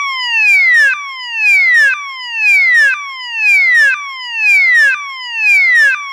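Takenaka Engineering ASF-12SR LED flash multi-siren sounding loudly in a repeating falling-sweep pattern. Each tone glides down in pitch over about a second, then snaps back to the top and starts again.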